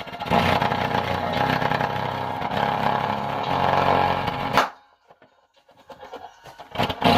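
Titan subwoofer driven hard, playing loud, buzzy, distorted bass notes. About four and a half seconds in it cuts out abruptly with a click, followed by faint crackles before the sound comes back near the end.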